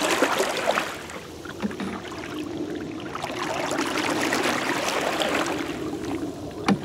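Canoe paddles swishing and dipping through calm river water, with a sharp knock near the end.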